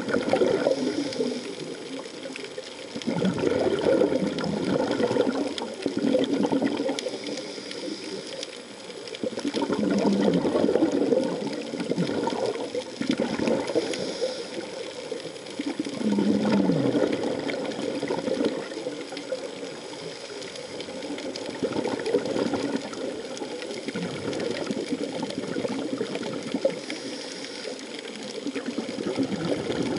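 Scuba divers breathing through their regulators underwater: bursts of exhaled bubbles come every few seconds over a steady hiss.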